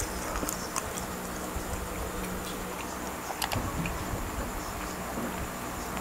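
Small wet clicks and crackles of fingers tearing roast chicken skin and meat apart by hand, with a cluster of louder clicks a little past the middle as the piece is dipped into sauce. A faint steady hum runs underneath.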